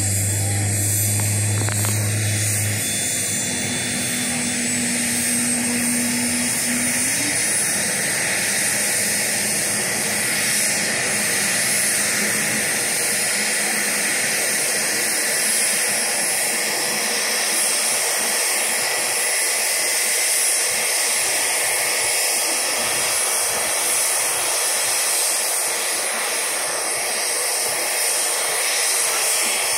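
UH-60 Black Hawk helicopter's turboshaft engines and rotor running steadily on the ground, a loud, even rush of turbine and blade noise.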